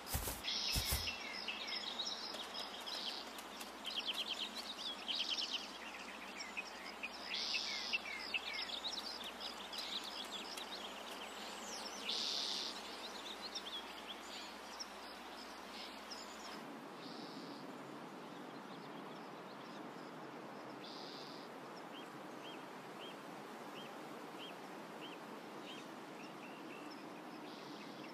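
Birds chirping and calling over a steady hiss of outdoor ambience. About two-thirds of the way through, the background changes to a quieter bed with faint, evenly repeated short chirps.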